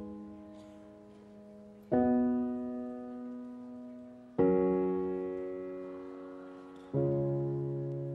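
Slow piano background music: a sustained chord struck three times, about every two and a half seconds, each one fading away before the next.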